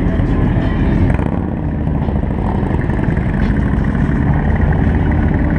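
Motorcycle engines running at low speed, a steady low rumble heard from on a moving motorcycle among many others.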